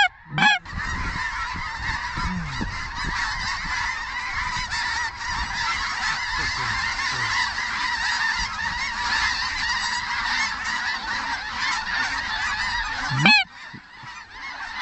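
A large flock of snow geese calling, a dense chorus of many overlapping high honks that starts and stops abruptly, with wind rumbling on the microphone.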